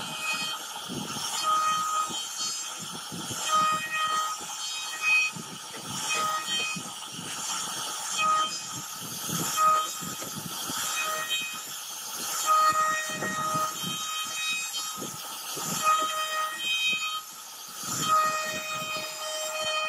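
CNC router spindle carving a relief pattern into a wooden board: a steady rough cutting noise, with a high whine at a fixed pitch that keeps coming and going in short spells as the bit cuts.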